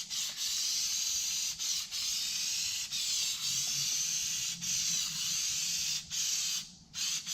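Spray adhesive hissing out of the nozzle in long passes while carpet is being glued down. The spray breaks off briefly several times between passes, with a longer pause near the end.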